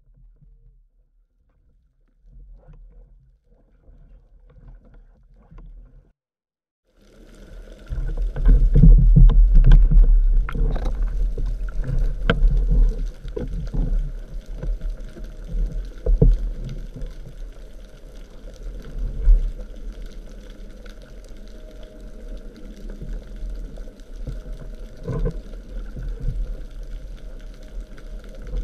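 Underwater noise heard through an action camera's waterproof housing: faint for the first several seconds, then from about seven seconds in, loud rushing water against the housing with scattered knocks and clicks.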